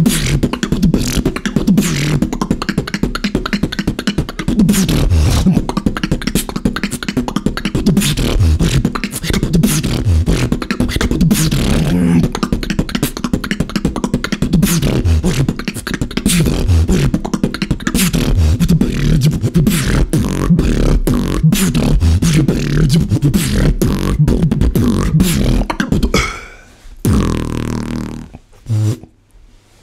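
Solo human beatbox: a dense, unbroken rhythm of mouth-made kick, snare and hi-hat sounds over a low bass line, loud and fast. The routine stops about four seconds before the end, with a couple of short last sounds after it.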